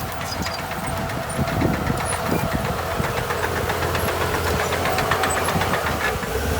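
Heavy diesel earthmoving machinery running under work, with a steady whine and a fast, even rattling clatter through the middle.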